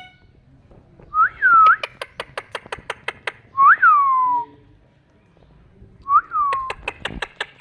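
Ringneck parrot whistling: three swooping notes that jump up and glide down, with a series of sharp clicks, about four a second, between the notes.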